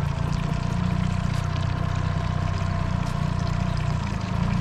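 Boat motor running steadily at low speed, an even hum with a few higher steady tones, over rushing river water.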